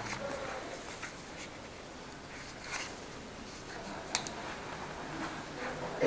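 Light rustling and scraping with a few small clicks as items in an old equipment case are handled; one sharper click about four seconds in.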